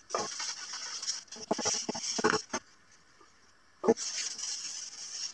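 Cloth rag rubbing oil onto a wooden board: three stretches of hissing wiping strokes with short pauses between them, and a sharp knock just before the last stretch.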